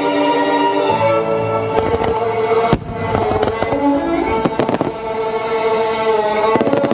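Starmine fireworks bursting and crackling over classical orchestral music from the venue's loudspeakers. A cluster of sharp bangs and crackles comes about two to three seconds in, the loudest bang near the middle of it, and more crackles come near the end.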